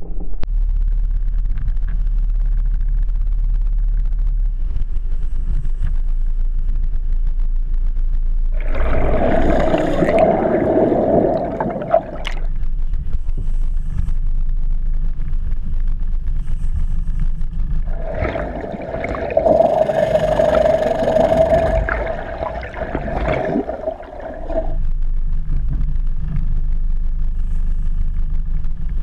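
Steady low rumble of a boat's motor running. Twice, for about four and six seconds, a louder sound with a steady mid-pitched tone and hiss rises over it.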